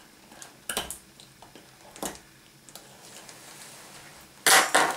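Dissecting scissors cutting down through a chicken's rib cage: a few short, sharp snips, then a louder burst of handling noise about half a second long near the end.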